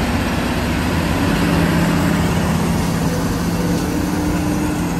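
Heavy truck's diesel engine running steadily under load as it hauls a large crawler excavator on a lowboy trailer, over a constant hiss.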